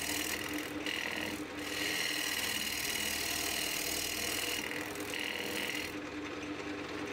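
Bowl gouge cutting into a spinning cherry bowl blank on a wood lathe, in four separate cuts, the longest about three seconds, over the steady hum of the lathe.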